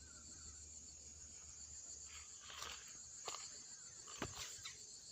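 Faint, steady, high-pitched chorus of insects, with a few short soft clicks near the middle.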